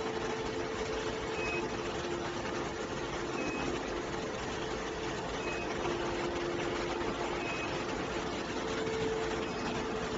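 Steady machinery running noise with a constant two-tone hum, and a short high beep about every two seconds.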